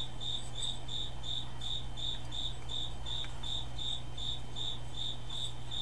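A cricket chirping steadily, about three or four chirps a second, over a low steady hum.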